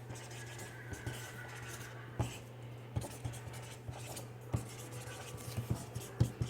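Faint rubbing and scratching with several soft knocks, over a steady low hum.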